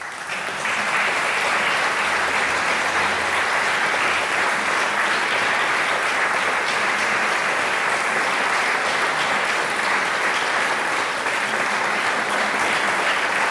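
Audience applauding. The clapping breaks out suddenly and then holds steady.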